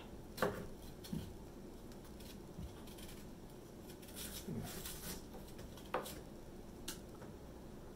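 Kitchen knives peeling and cutting ripe persimmons: a few light taps of a blade on a wooden cutting board, with soft scraping and slicing between them.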